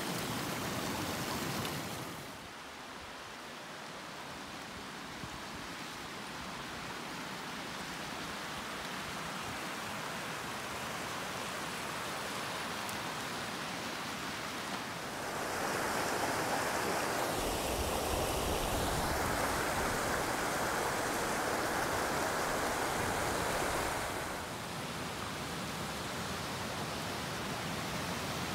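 Mountain creek rushing over rocks, a steady hiss of running water that grows louder for several seconds in the middle.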